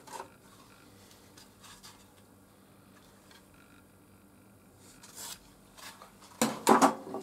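Faint rustling and rubbing as pieces of wood are handled, with the saw not running, then a short clatter of wood knocking on the saw's table near the end.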